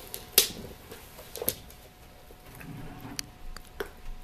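Dog chewing and pawing a hard bone-shaped chew toy, giving a few sharp clicks and knocks as the toy hits the wooden floor and meets his teeth, the loudest about half a second in.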